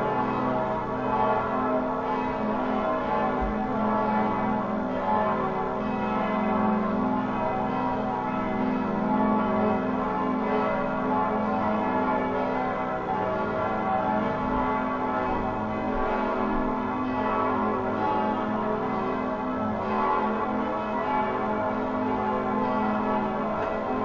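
Several church bells pealing together, their overlapping ringing tones running on without a break.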